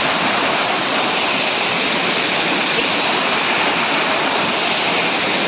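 Waterfall crashing steadily: a constant, loud rush of falling water.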